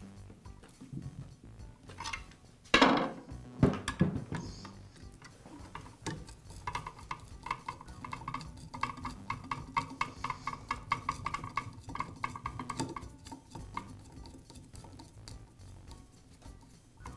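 Long Phillips screwdriver driving screws into a power drill's metal gear housing: a few sharp clacks about three seconds in as the tip meets the screw, then a long run of quick ticking and squeaking as the screw is turned.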